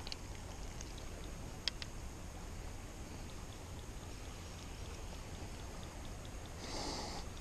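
Quiet outdoor background: a steady low rumble and soft hiss, with two small clicks a couple of seconds in and a brief rustle near the end.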